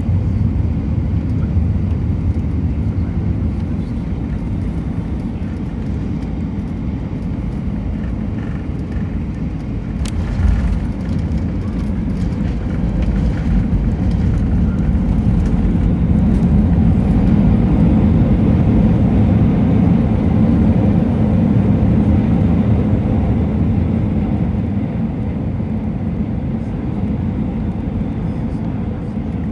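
Airliner cabin noise during an Airbus A320-232 landing: a steady low rumble of airflow and its IAE V2500 engines, then a thump with rattling at touchdown about ten seconds in. From about fourteen seconds the engines swell into reverse thrust, loudest around twenty seconds, then die back as the jet slows on the runway.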